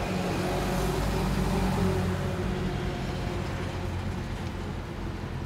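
Steady low drone of an idling motor vehicle engine, with a faint hiss of street noise over it.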